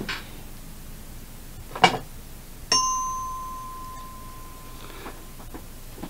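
A short knock, then about a second later a single bell-like ding that rings on and fades away over about two seconds.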